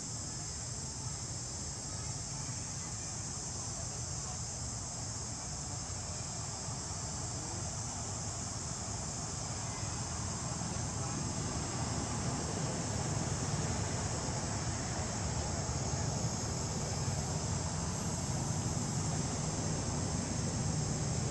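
A steady, high-pitched insect chorus runs on unbroken over a low, even rumble, which grows a little louder about halfway through.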